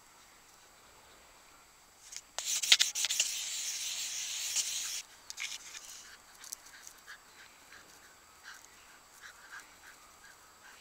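Scratchy rubbing noise on the recording device's microphone for about three seconds, with a few sharp clicks, stopping abruptly; faint scattered rustles and ticks follow.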